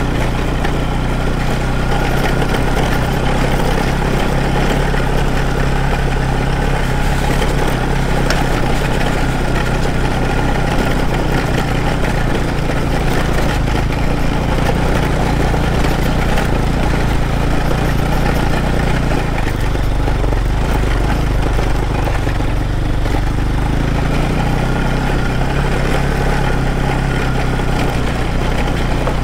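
Motorcycle engine running steadily, its note shifting briefly about twenty seconds in.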